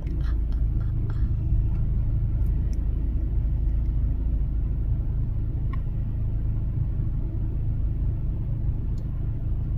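Car engine idling, a steady low rumble, with a faint tick or two.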